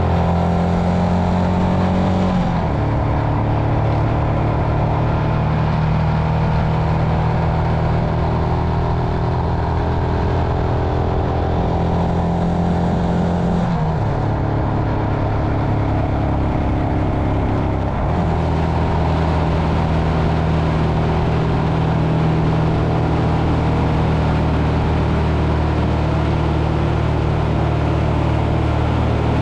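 Royal Enfield Himalayan's 411 cc single-cylinder engine running steadily under way, its note changing abruptly about two and a half seconds in, and again around fourteen and eighteen seconds in.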